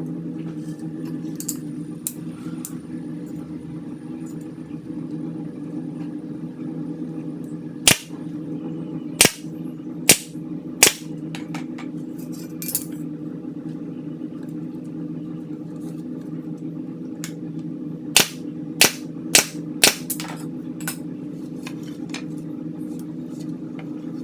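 Pneumatic nail gun firing sharp shots, four in about three seconds and then four more in quick succession, over a steady motor hum from a running machine such as an air compressor.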